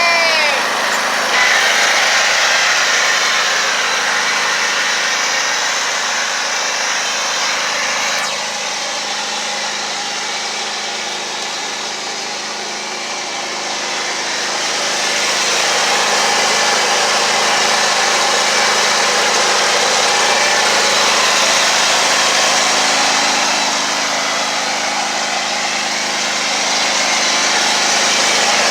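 Riding lawnmower's small gasoline engine running continuously just after starting, its sound easing off and rising again as the mower is driven.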